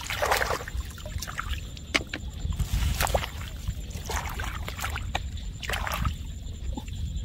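Hands digging and scooping in wet mud at the water's edge: squelching mud and sloshing, splashing muddy water, with many irregular wet clicks and splashes over a low steady rumble.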